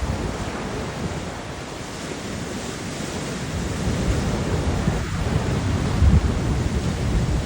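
Sea waves washing in, with wind buffeting the microphone in low, uneven gusts; the surf swells louder in the second half.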